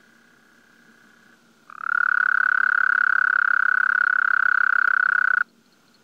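A toad's trill: one long, even trill of about three and a half seconds, starting about two seconds in and cutting off sharply. A fainter steady trill at a similar pitch runs before and after it.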